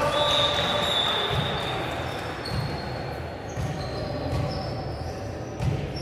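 Echoing sports hall ambience during a volleyball match: trainers give short high squeaks on the court floor over dull thuds and a low background of voices. A high steady tone lasts about a second at the start.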